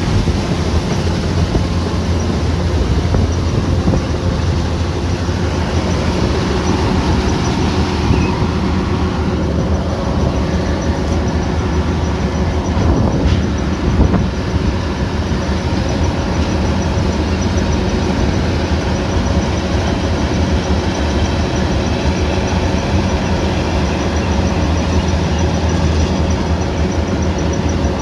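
Kubota combine harvester running steadily under load: a constant engine drone mixed with the rattle and hiss of the cutting and threshing machinery, with a brief knock about halfway through.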